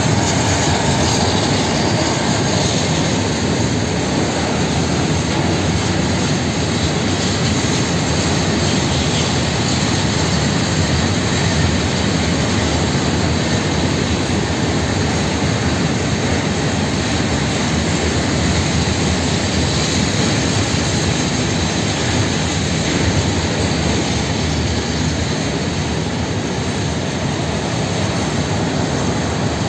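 Freight train of steel open-top gondola wagons rolling past at close range: a loud, steady rumble of wheels running on the rails.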